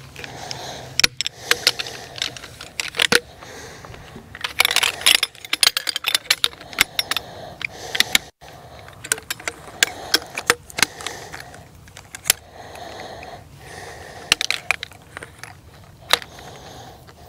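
Camping chair's shock-corded frame poles clicking and clacking as they are unfolded and snapped together, with some rustling of fabric or the packing bag in between.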